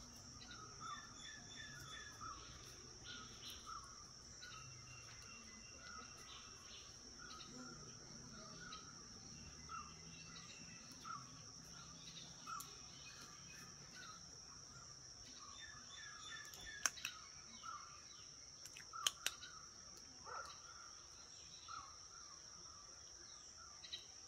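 Faint outdoor ambience: a steady high-pitched insect drone, with short chirping calls repeating every half second or so and a few sharp clicks in the second half.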